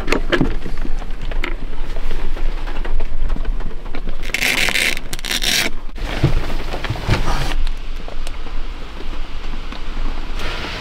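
Heavy rain falling on the roof of a campervan, heard from inside as a steady rushing noise, with two louder hissing surges about four and six seconds in.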